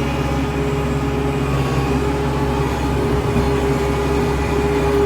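Kubota MX tractor's diesel engine running steadily under load, held at about 2,000 RPM while it pulls a box scraper, heard from inside the closed cab with the air conditioning on.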